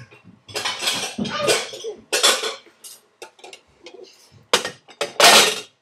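Dishes and cutlery clattering as they are taken out of a dishwasher and put away: a run of irregular knocks and rattles, the loudest near the end.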